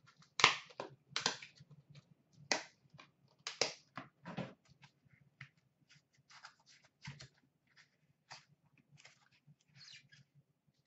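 Hands opening a hockey card box and handling its packaging and cards: a string of sharp clicks, snaps and rustles, loudest in the first few seconds and lighter after.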